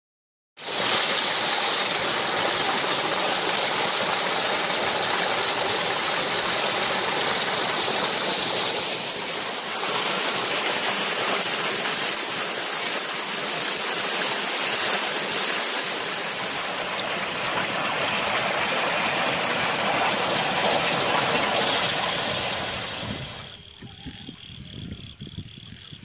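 Muddy floodwater gushing out of a large drainage pipe and splashing into a flooded ditch: a loud, steady rushing. About 23 seconds in it falls away to much quieter running water.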